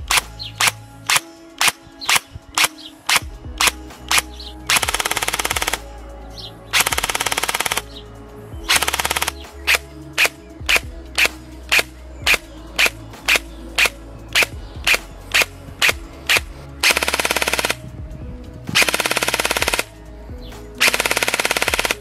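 ARES AR308M electric airsoft rifle (AEG) firing: quick single shots, a little over two a second, broken six times by full-auto bursts of about a second each, the gearbox cycling with every shot.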